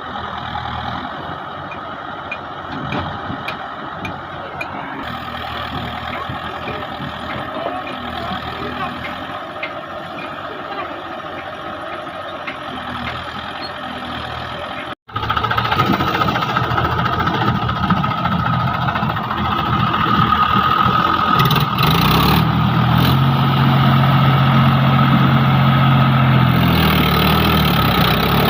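JCB 3DX backhoe loader's diesel engine running while it digs. After a brief break about halfway through the sound is louder, and a steadier low engine note holds for several seconds near the end.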